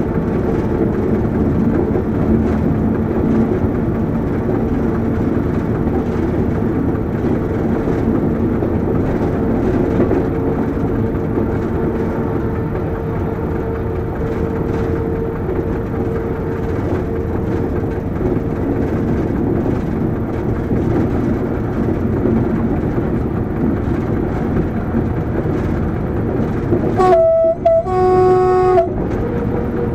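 SNCF BB 67400-series diesel locomotive running steadily, heard from inside the cab with wheel and rail noise. Near the end its horn sounds twice, two short blasts on different notes.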